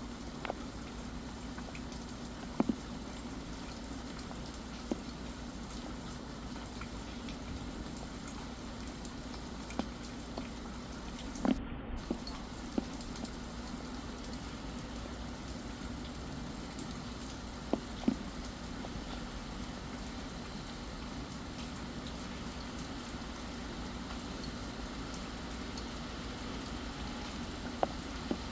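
Steady rain falling, with single louder drops tapping now and then, a few seconds apart.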